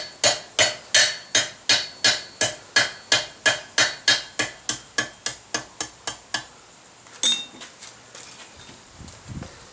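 Blacksmith's hand hammer striking hot mild steel on an anvil: a steady run of ringing metallic blows, about two and a half a second, growing lighter before they stop about six and a half seconds in. A single sharp clink and some faint metal clatter follow.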